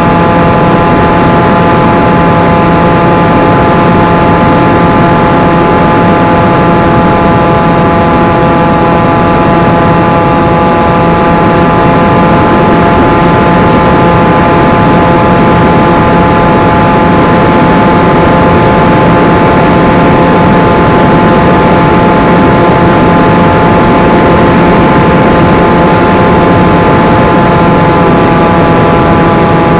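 Flying wing's electric motor and propeller, recorded by the onboard camera, whining at an even pitch at constant throttle over steady wind rush.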